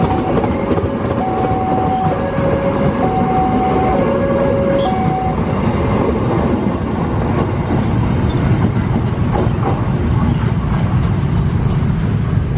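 Passenger train coaches rolling past close by with a steady rumble and a few clacks of wheels over rail joints. A railway level-crossing warning alarm alternates between two tones, high and low, about twice a second, and stops about five seconds in.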